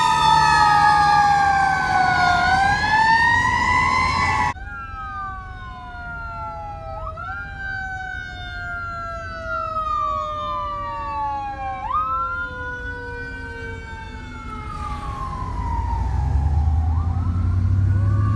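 Fire truck sirens wailing. A ladder truck's siren sweeps up and down loudly close by, then cuts off abruptly about four and a half seconds in. A more distant fire engine's siren follows, rising quickly and falling slowly several times, with a heavy truck engine rumble growing near the end as the apparatus draws near.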